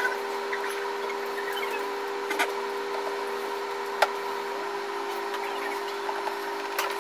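High-reach demolition excavator running with a steady mechanical hum from its engine and hydraulics, with a few sharp knocks, the loudest about four seconds in.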